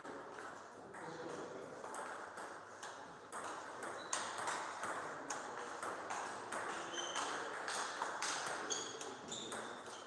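Table tennis rally: the ball clicking back and forth off rackets and table in quick succession, with a few short high squeaks in the last few seconds.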